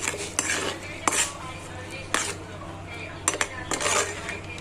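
A kitchen utensil clinking and scraping against cookware: several sharp clinks with scraping in between.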